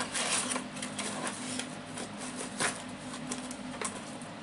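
A small cardboard box being handled and opened by hand: cardboard and packaging rustling and scraping with light knocks, louder at the start and again a little past halfway.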